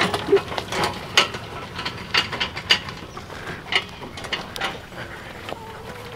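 Metal two-wheeled hand truck rattling and clacking with irregular knocks as it is wheeled over grass, loaded with a large plastic water jug.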